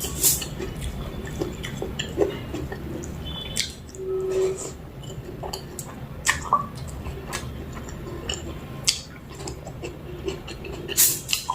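Close-miked wet squishing, smacking and chewing sounds of someone eating mutton curry with rice, with scattered sharp clicks.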